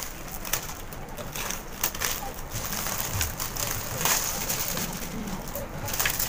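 Clear cellophane gift wrapping crinkling and crackling as it is pulled and torn open by hand, in quick irregular bursts.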